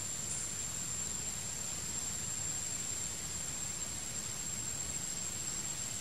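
Steady background hiss with a constant thin, high-pitched whine and a low rumble underneath; no calls or distinct events.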